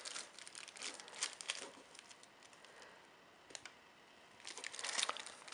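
Light paper crinkling and small handling clicks as a paper-wrapped pack of firecrackers is turned over in the hands, in two bouts with a quieter stretch in the middle.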